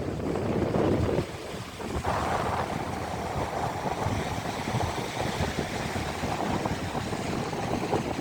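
Wind blowing across the microphone: a steady rushing noise, heaviest in the low end, that swells and eases slightly.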